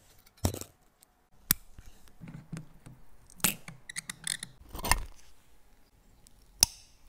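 Small metal watchmaker's tools clicking and scraping against a Tissot watch's case and dial while it is taken apart. About five sharp separate clicks, with softer scraping and handling between them.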